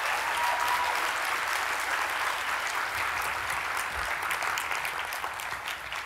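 Large audience applauding, a steady clapping that dies down near the end.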